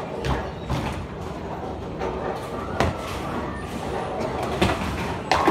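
Bowling ball rolling down a wooden lane with a low rumble, then crashing into the pins near the end for a strike.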